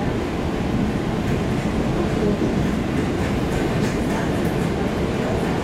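EP2D electric multiple unit running at speed, heard inside a passenger car: a steady, dense low rumble of wheels and running gear.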